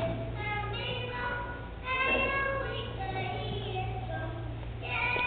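A group of young children singing together, with a steady low hum underneath.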